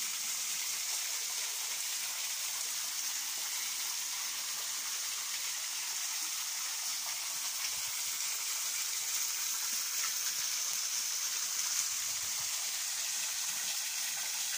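A thin waterfall splashing steadily down a rock face onto stones and a shallow pool, an even, high-pitched hiss.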